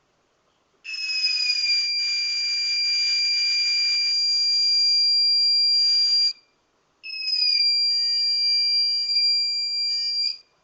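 The electronic buzzer of a homemade fire alarm circuit sounds a steady high-pitched tone, showing that the alarm has been triggered. It sounds twice: about five seconds, then after a short break about three seconds more.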